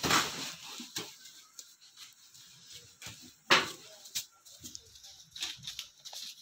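Scattered bumps, scrapes and rustles from a heavy white sack being hauled off a truck bed and carried on the shoulder, with one loud, short noise about three and a half seconds in.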